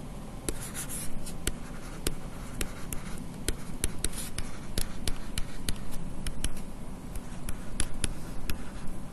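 Pen stylus tapping and scratching on a tablet while handwriting numbers: an irregular run of sharp clicks, a few each second.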